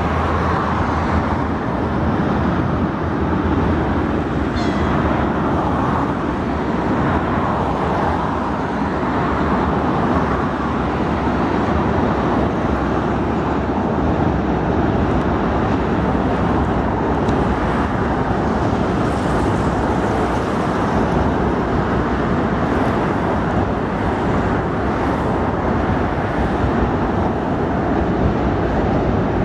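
Steady road-traffic noise, an even rush of passing vehicles with no single event standing out.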